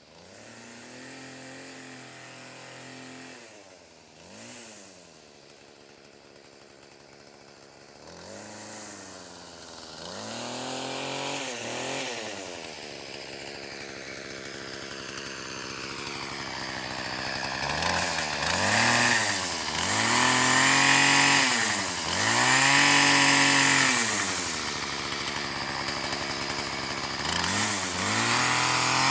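Two-stroke gas string trimmer running, starting at a low idle and then revved up and let back down again and again, each rev a rising and falling engine whine; it grows louder toward the end as it comes closer.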